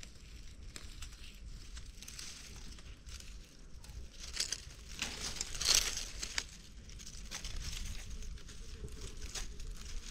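Dry leaves and brush crackling and rustling, with a louder cluster of crackles about halfway through.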